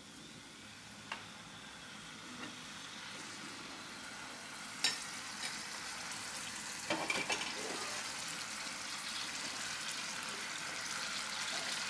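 Chicken pieces frying in hot oil in a pan, a steady sizzle that grows louder, with a sharp click about five seconds in and a few knocks around seven seconds.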